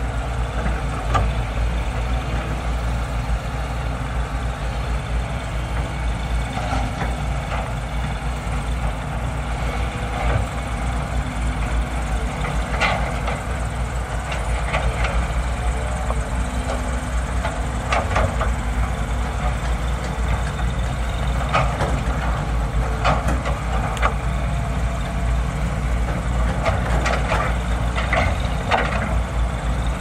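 Heavy diesel engines of tracked hydraulic excavators running steadily, with scattered clanks and knocks as the buckets dig into rocky soil.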